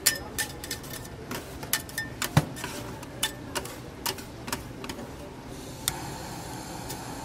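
A run of sharp, irregular clicks and light clinks, a few a second, thinning out after about five and a half seconds over a steady background hum.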